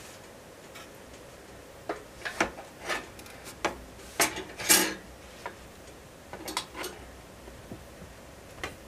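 Wood fire crackling inside an Invicta Siam cast-iron stove: irregular sharp pops with uneven gaps, loudest in a cluster around the middle.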